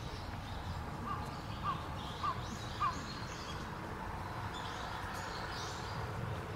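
A bird calls four times in quick, even succession, short calls a little over half a second apart, over steady outdoor background noise.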